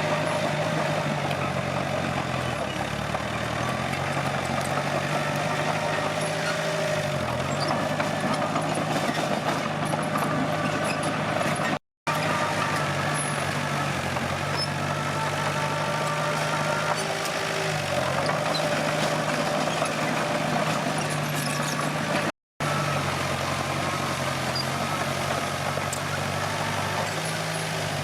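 Komatsu D21P bulldozer's diesel engine running steadily, its pitch dipping briefly twice. The sound breaks off for an instant twice.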